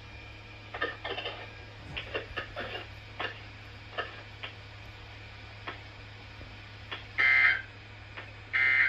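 NOAA Weather Radio SAME end-of-message data bursts: two short digital bursts about a second and a half apart near the end, the signal that the Required Weekly Test broadcast is over. Before them, faint clicks over a steady low hum of the radio receiver.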